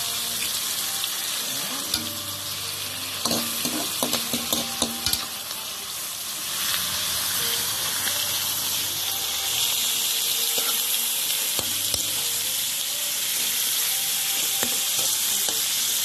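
Salmon heads sizzling in hot oil with sautéed onion, garlic and tomato, seared briefly to take away the fishy smell, while a metal spatula taps and scrapes against the pan. A cluster of spatula clicks comes about three to five seconds in, and the sizzle grows louder after about six seconds.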